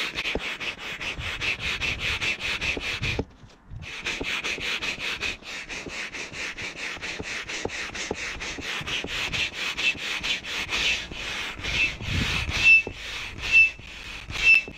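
Hand pump inflating a wing's inflatable bladder, a rhythmic hiss of air and rubbing with each stroke. In the last few seconds the strokes come about once a second, each with a short high squeak.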